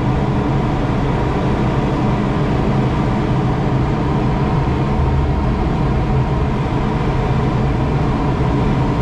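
Steady rush of airflow over a sailplane's canopy in flight, a constant loud noise with a faint steady hum in it.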